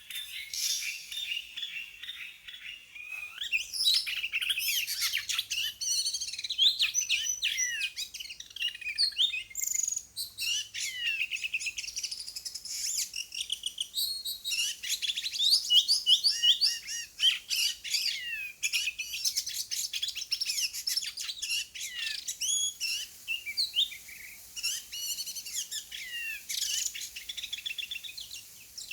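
Oriental magpie-robin song: a long, continuous run of varied whistled phrases, slurred notes and quick chattering trills.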